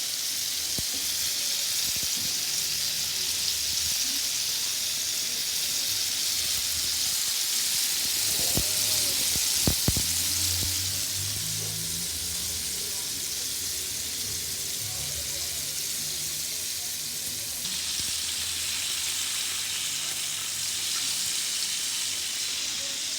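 Chicken wings deep-frying in hot oil in a pot: a steady sizzle, with a few sharp knocks about ten seconds in.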